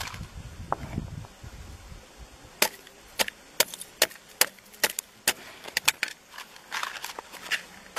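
A pointed hand tool striking clear lake ice over frozen-in gas bubbles: a quick run of about a dozen sharp, hard taps, two or three a second, from about two and a half seconds in until about six seconds in.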